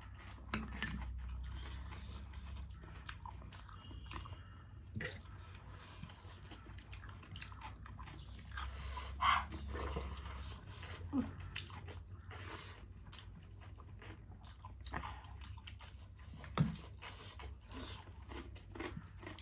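Close-up chewing and crunching of food, with scattered small clicks and mouth sounds of eating.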